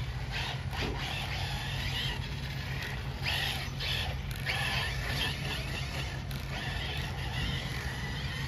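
Electric RC short course trucks running on a dirt track, their motors whining in swells as they accelerate and brake through the turns, over a steady low hum.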